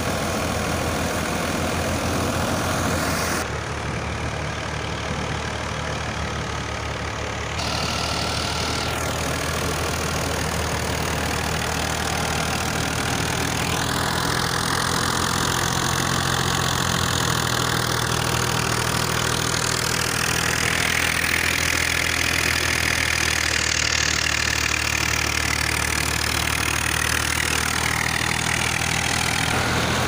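Fiat 480 tractor's diesel engine running steadily, driving a wheat thresher, with the thresher's continuous running noise over the engine.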